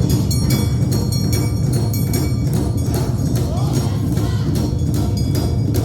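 Awa Odori festival music played live: deep taiko drums and ringing, clanging kane hand gongs strike in a steady, continuous rhythm.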